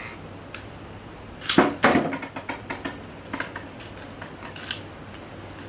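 Toy battle spinning tops clattering against each other and the arena: two loud knocks about a second and a half in, then scattered light clicks.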